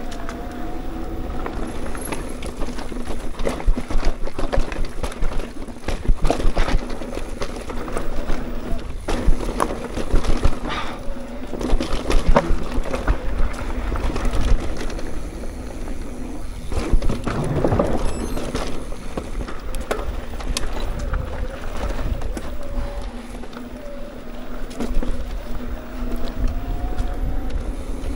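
Mountain bike being ridden along a dirt singletrack trail: continuous tyre and ride noise with frequent knocks and rattles as the bike goes over bumps.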